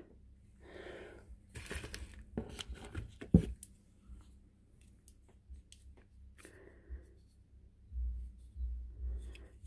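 Handling noise: plastic jars of nail dip powder clicking and knocking together and rustling in their cardboard box as one is put back and another picked up, with one sharper click about three and a half seconds in. Near the end, low rumbling from a hand gripping the phone.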